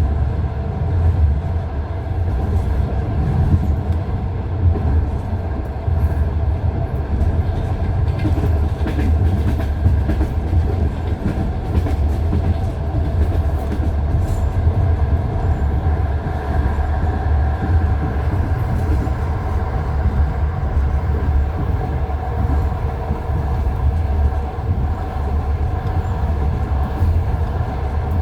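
Passenger train running on jointed (non-welded) rail track, heard from inside the carriage: a steady low rumble with the wheels knocking over the rail joints.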